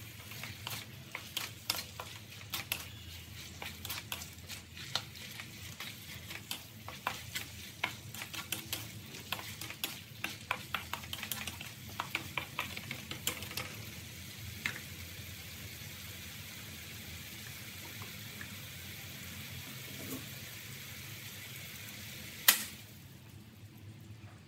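Beef, broccoli and mushrooms stir-frying in a metal wok over a steady sizzle. For the first half the spatula clacks and scrapes against the pan many times, then the food sizzles on its own. Near the end there is one sharp knock, and the sizzle is quieter after it.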